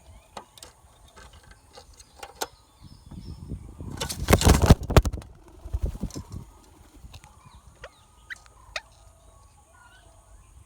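Rose-ringed parakeet chicks calling in short, scattered squawks, with a loud rough burst of noise about four to five seconds in.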